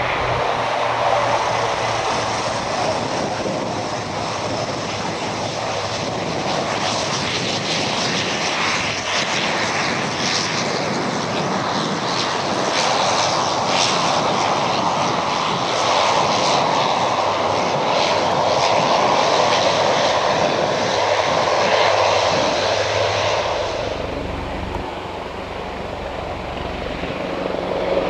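BAe Jetstream 41's twin Honeywell TPE331 turboprop engines running loud and steady as the aircraft moves along the runway, with a strong hiss over a deeper engine note. About four seconds before the end the sound changes abruptly to a Super Puma helicopter's lower rotor and turbine sound.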